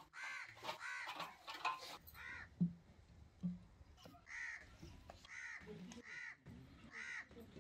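Harsh bird calls repeated over and over, quick at first and then about once a second, with two dull knocks around the middle.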